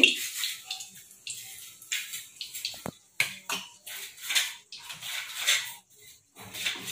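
Steel spoon scooping through wet marinated chicken in a steel bowl: a run of short, squelching scrapes with a sharp clink of metal on metal about three seconds in.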